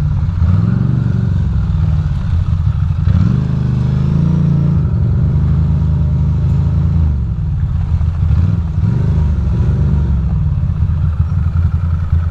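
Ducati Monster's V-twin engine running at low revs in slow traffic, with short throttle blips that rise and fall in pitch about half a second in, around three to four seconds in, and again near nine seconds.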